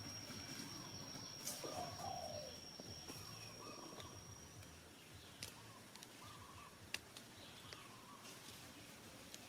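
Faint, short animal calls repeating every second or two over outdoor background noise, with a few sharp clicks. A thin, high steady whine fades out about halfway through.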